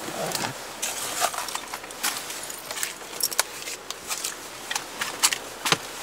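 Irregular sharp clicks, crackles and rustles of a person shifting about and climbing out of a car onto frozen snow, with one heavier knock near the end.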